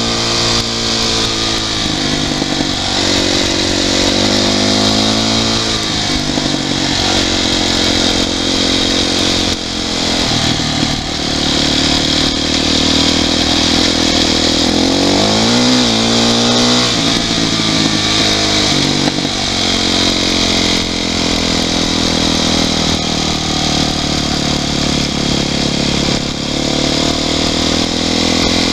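Yamaha YZ450F single-cylinder four-stroke dirt bike engine running under way, its pitch climbing and dropping several times as the rider works the throttle and gears. A steady rush of wind runs underneath.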